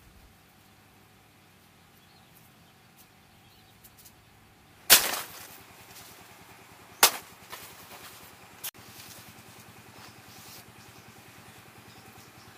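Banana leaf stalks snapping: a loud crack about five seconds in, a second crack two seconds later and a small click soon after, over a faint steady engine hum.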